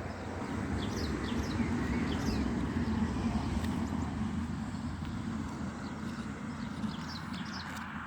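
Small birds chirping now and then over a steady low rumble that swells and then slowly fades.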